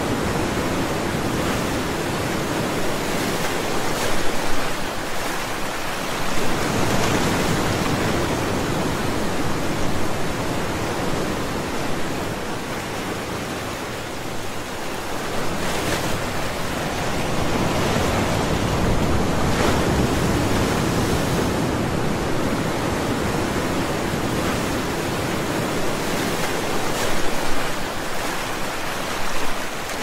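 Ocean surf: waves breaking and washing in, a steady rush that swells and eases every few seconds, with a few louder breakers.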